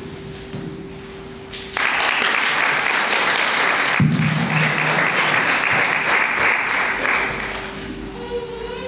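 Audience clapping, starting suddenly about two seconds in and dying away near the end, with music starting under it partway through.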